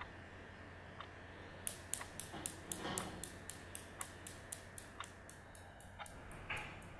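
Newton's cradle steel balls clacking against each other about four times a second. The clacking starts sharply about a second and a half in and gradually dies away. A faint steady tick sounds once a second underneath.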